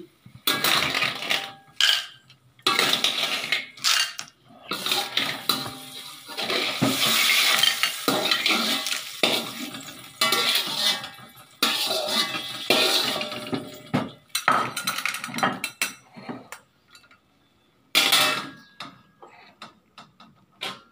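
Metal ladle scraping a wok and cooked cockles clattering shell on shell into a ceramic bowl, in irregular bursts of clinks and scrapes, with a short pause near the end.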